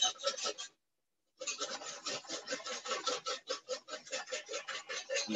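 A wire whisk beating hollandaise in a metal bowl: fast rhythmic scraping strokes, about seven a second, while clarified butter is drizzled in to build the egg-yolk emulsion. The sound cuts out completely for a moment about a second in.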